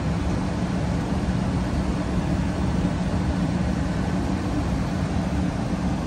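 2019 Carrier Performance Series 80% gas furnace running steadily with its five burners lit: a steady low hum and rumble from the draft inducer fan motor and the burner flames, all components working properly.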